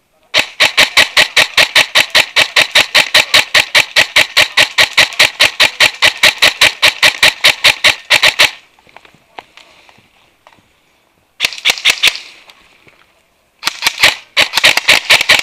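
Airsoft rifle firing close by in a long string of rapid shots, about six a second, lasting some eight seconds. After a pause comes a short burst, then another string near the end.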